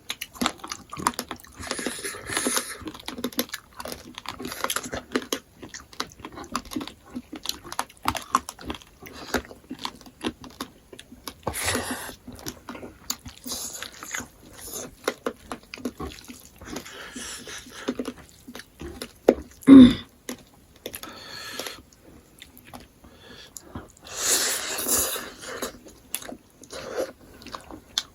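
Close-miked chewing and mouth noises of people eating smoked pork with axone: irregular wet smacks, clicks and slurps. About twenty seconds in comes a short voiced sound, the loudest in the stretch, and a few seconds later a longer noisy slurp-like rush.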